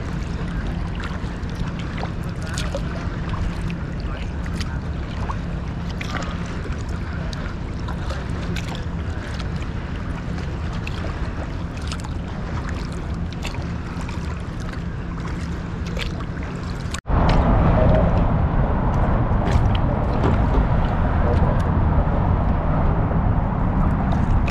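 Open-water ambience heard from a kayak: steady wind and water noise with light scattered ticks of water, over a low steady hum. About 17 seconds in the sound cuts off for an instant and comes back louder and rougher.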